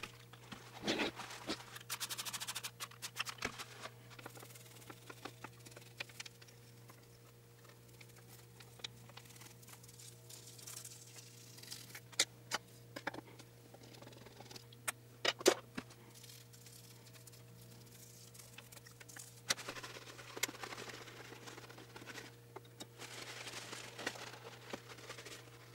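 Paper towels rustling and rubbing in bursts as a vintage sewing machine's body is wiped down, with scattered sharp clicks and knocks against the machine, the loudest a little past the middle. A low steady hum sits underneath.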